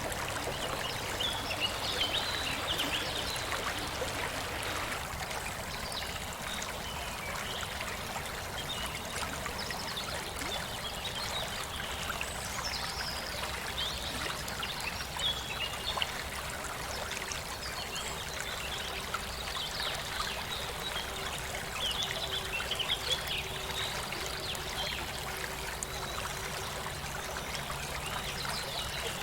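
Mountain stream flowing and trickling steadily over rocks, with birds chirping and singing now and then over the water.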